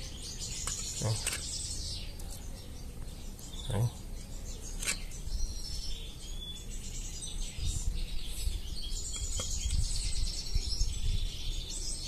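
Small birds chirping and twittering, with a few short clicks and a low rumble in the second half.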